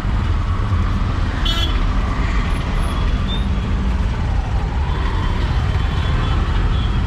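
Auto-rickshaw engine running in street traffic, heard from inside the open-sided cab as a steady low rumble. A short horn beep sounds about a second and a half in.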